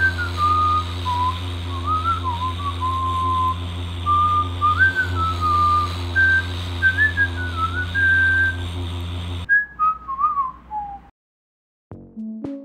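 A person whistling a wandering tune over the steady low hum of a Yamaha R6 engine idling. About nine and a half seconds in the engine hum cuts off abruptly; the whistle carries on briefly, sliding down in pitch, and stops.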